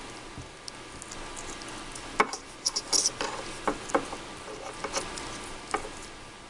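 Scattered small clicks and crackles of hands working wires and electrical tape, thickest in the middle stretch, over a faint steady hum.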